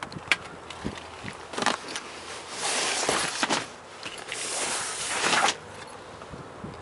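Handling noise on the microphone: a sharp click, then several bursts of rustling hiss lasting about a second each as the camera moves about.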